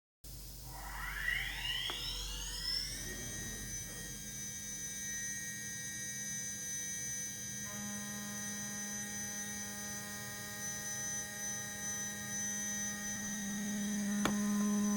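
Hobby CNC machine's spindle spinning up with a rising whine over about three seconds, then running steadily at speed. A second set of steady tones joins about eight seconds in, and there is a single click near the end.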